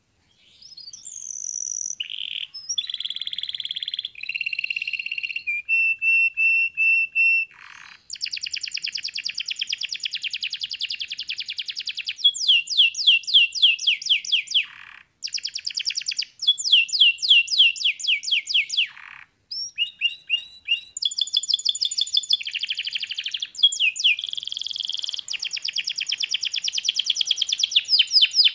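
Yellow domestic canary singing a long song: fast trills of rapidly repeated notes alternating with rolling, gliding phrases. The song starts about half a second in, with a few short breaks.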